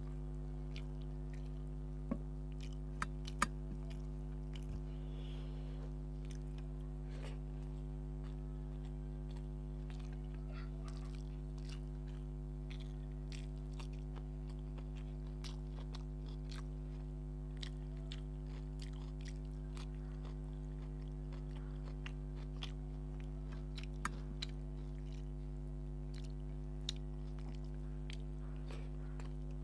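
Close-miked chewing and mouth sounds of a person eating rice and fish curry by hand, with many small wet clicks. A few sharper clicks come about two to three seconds in and again near the end, over a steady low hum.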